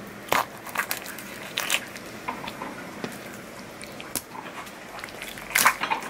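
Kitchen knife cutting through a lionfish's fin spines on a cutting board: a series of sharp, irregular crunches and clicks, loudest about a third of a second in and again near the end.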